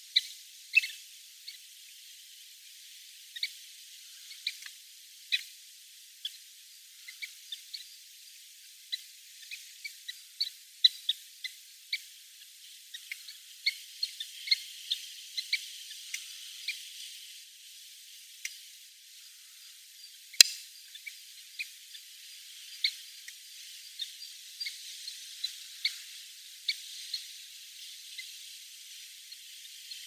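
Kentish plovers calling: short, high call notes scattered irregularly, often one or two a second, with one sharp click past the middle.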